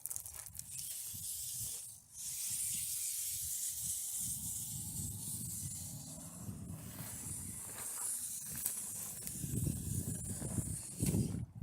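Shallow snowmelt runoff stream rushing with a steady hiss, while wind buffets the microphone in uneven low rumbles that grow stronger near the end.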